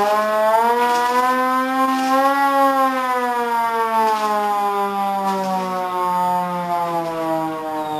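A single continuous droning tone with many overtones. It slides slowly up to a peak about two and a half seconds in, then sinks gradually and steadily lower for the rest of the time, like a slow siren.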